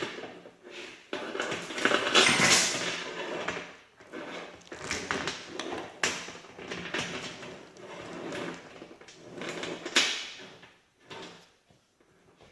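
Steel baler chain being pulled and stretched out by hand, its links rattling and clinking against each other, with a sharp metal clank about ten seconds in before it goes quiet.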